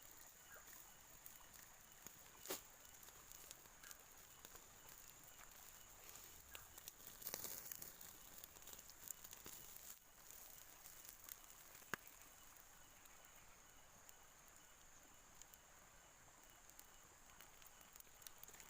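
Faint outdoor ambience: a steady high-pitched insect drone, with scattered soft crackles and clicks. A sharp click comes about 2.5 s in, a short cluster of crackling about 7 seconds in, and another sharp click near 12 s.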